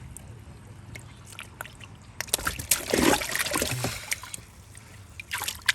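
Water splashing and sloshing as a koi is handled: a quiet start, then a burst of splashing a couple of seconds in, and a shorter splash near the end.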